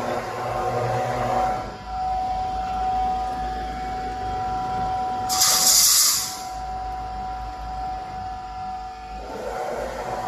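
Automatic wire mesh welding machine running with a steady hum and a held tone. About five seconds in, there is a loud hiss of compressed air venting from its pneumatic wire-feeding system, lasting about a second.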